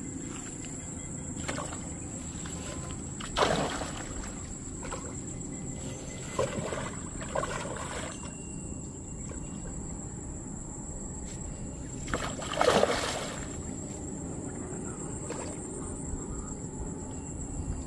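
A big hooked carp thrashing at the surface close to the bank, making several water splashes: a sharp one about three and a half seconds in, two smaller ones around six to seven seconds, and the loudest near thirteen seconds.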